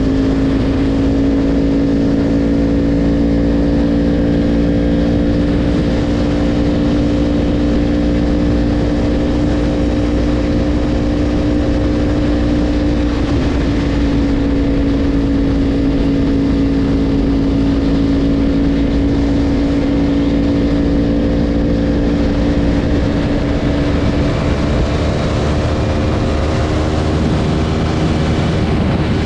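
Yamaha R1 sport bike's inline-four engine running at a steady cruising speed. It holds an even note, with a brief break about halfway through, and the pitch rises slowly toward the end.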